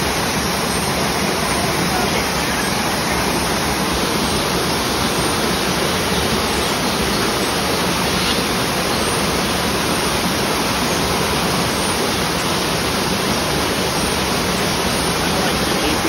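Fountain water splashing and falling steadily, an even, unbroken rush of water.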